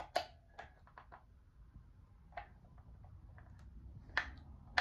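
Irregular sharp plastic clicks and taps from handling and pressing the buttons of a talking alarm clock, about eight in all, the loudest just after the start and about four seconds in.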